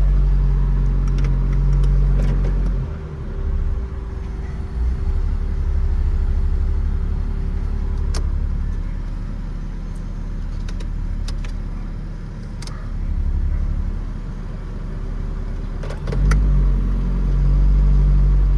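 Honda Fit's L13 1.3-litre four-cylinder engine running: a steady idle hum for the first few seconds and again for the last couple, rougher and more uneven through the long middle stretch, with a few sharp clicks.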